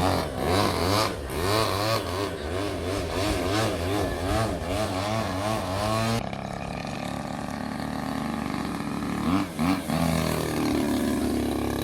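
Radio-controlled model aeroplane's engine in flight, its pitch rising and falling over and over as the plane manoeuvres. About six seconds in the sound changes abruptly to a steadier drone, with one more quick rise and fall near the end.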